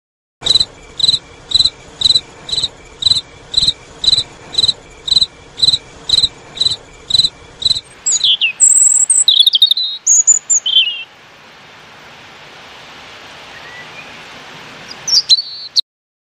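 Cricket chirping in an even rhythm of about two short, high chirps a second. About eight seconds in it gives way to a European robin: a few quick, high, sliding song notes, then faint hiss with a couple more brief notes near the end.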